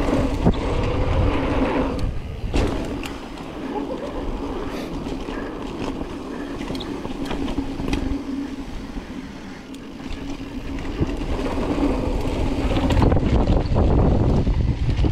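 Mountain bike riding down a dirt bike-park trail at speed: wind buffeting the microphone and tyres rumbling over the ground, with a steady hum, scattered knocks and rattles from the bike, and a louder stretch near the end.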